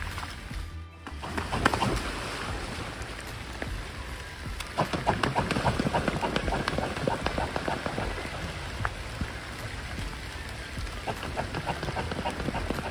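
Rain pattering steadily on the lake surface. From about five seconds in comes a louder run of rapid splashing as a mute swan runs across the water, beating its wings to take off.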